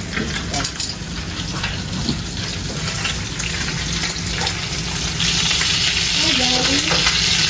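Food sizzling and crackling in a frying pan, a steady hiss that grows louder about five seconds in.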